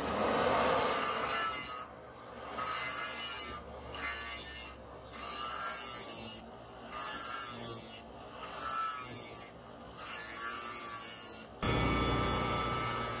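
Angle grinder with a flap disc grinding a steel leaf-spring knife blank. The grinding swells and fades in repeated strokes, and the motor's whine dips in pitch each time the disc is pressed in. About eleven and a half seconds in it turns abruptly louder and steady.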